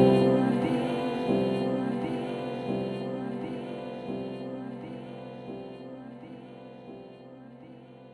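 Background music: the slow, gentle instrumental ending of a love song, with sustained chords changing every half-second or so and fading out steadily.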